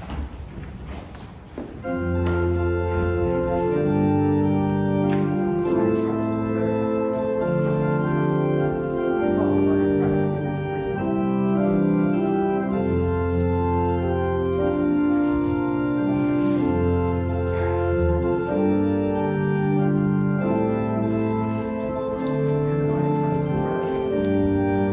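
Organ playing slow, sustained chords over long held bass notes, beginning about two seconds in.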